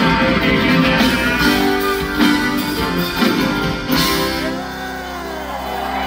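Live band with acoustic guitar, mandolin and keyboard playing the closing bars of a rock song. The last chord rings out about four seconds in.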